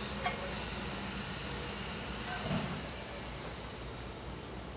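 Steady low background noise of a workshop, with a small click shortly after the start and a faint brief sound around the middle.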